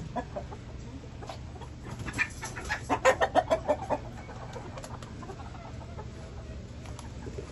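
Chickens clucking, with a quick run of clucks about two to four seconds in.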